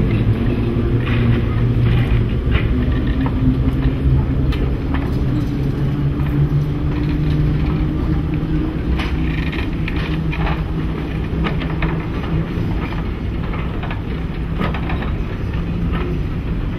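Class 08 diesel shunter's English Electric six-cylinder engine running steadily as it hauls coaches slowly past, with the coach wheels clicking over rail joints.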